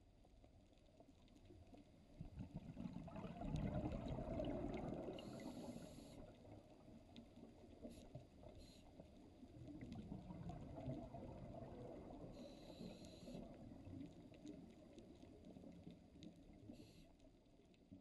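Muffled underwater sound of a scuba diver breathing through a regulator, heard through a camera housing: two slow swells of low bubbling rumble from exhaled air, each with a brief high hiss from the regulator.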